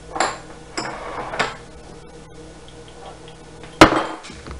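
Light clicks and knocks of baby food jars and lids being handled: three short ones in the first second and a half, then one sharp, loud click near the end.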